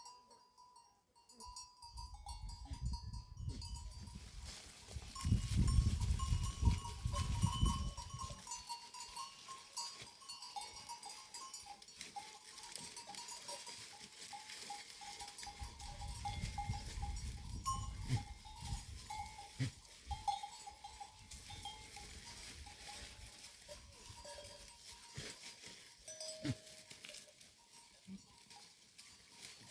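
A herd of goats and sheep with clinking neck bells, and some goat calls, with low rumbles from about two to eight seconds in and again midway.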